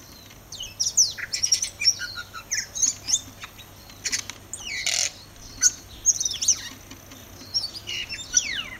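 Tui singing: a quick run of varied phrases of clicks, short whistles and gliding notes, ending with a long falling whistle near the end.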